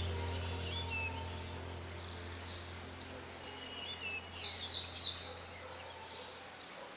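Birds calling: a sharp high call that sweeps downward, repeated about every two seconds, mixed with shorter chirps, over a steady low hum that fades away near the end.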